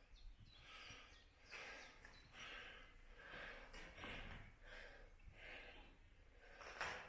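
A man breathing hard, with quick, faint breaths in and out about once a second.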